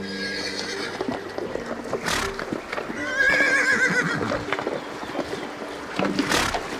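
Horse whinnying: one wavering, quavering call about three seconds in, with short noisy blasts near two seconds and again near the end.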